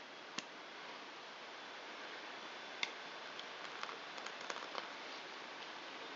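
A few small, sharp ticks and faint rustles over a steady hiss: fingers picking and peeling the transfer film off a freshly applied seat logo decal, which is coming away in bits.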